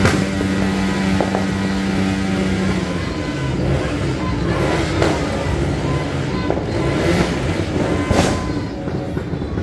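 A vehicle engine running at a steady pitch, which drops lower about three seconds in, amid loud street noise. A few sharp firecracker bangs go off in the second half.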